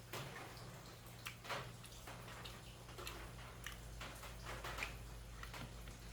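Eating sounds: faint, irregular wet clicks and smacks of chewing and picking at a stewed tuna head, over a low steady hum.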